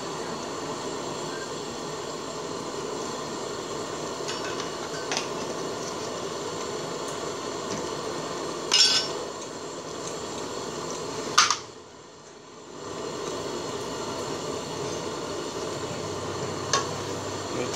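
A metal spoon and ladle clink against an aluminium cooking pot a few times as the curry is stirred, with the sharpest clink about two-thirds of the way through. Under the clinks runs a steady hiss from the pot on the gas burner, which drops away for a moment just after that clink.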